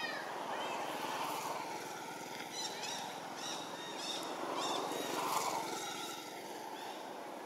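Short, high-pitched chirping calls of an infant long-tailed macaque: one right at the start, then a quick string of them from the middle on. Under them runs a steady outdoor rumble that swells up twice.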